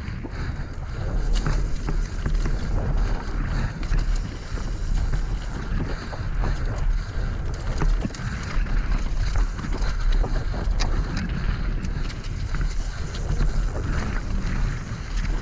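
Mountain bike tyres rumbling over a loose dirt and gravel trail on a fast descent at about 27 km/h, with wind buffeting the camera microphone and frequent small clicks and knocks from the bike rattling over stones.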